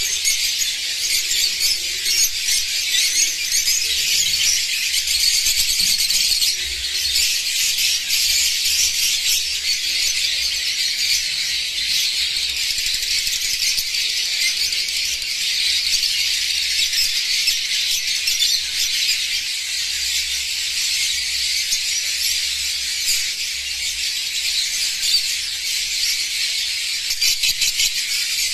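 Many caged Fischer's lovebirds calling at once: a dense, steady chatter of high-pitched calls with no break.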